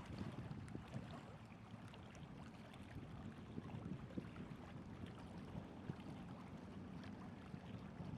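Faint, steady low wash of small waves on the shore, with light wind.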